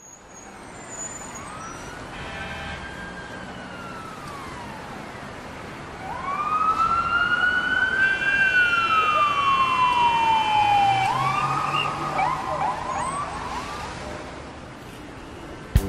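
Emergency vehicle siren wailing: a faint wail rises and falls, then a louder wail climbs for about two seconds and falls slowly, breaking into quick yelp sweeps near the end.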